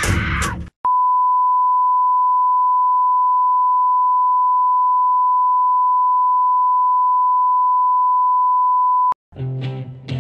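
Steady electronic beep tone at one unchanging pitch, switched on abruptly just under a second in, held for about eight seconds and cut off abruptly. A short burst of noisy sound comes at the very start, and music with guitar begins near the end.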